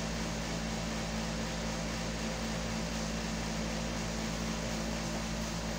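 Window air-conditioning unit running: a steady hum over an even hiss.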